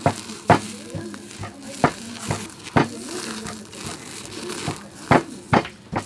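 A whole duck pressed and turned on a wire grill rack over open flames: half a dozen irregular knocks and clinks of the rack, with a crackling hiss of searing skin between them.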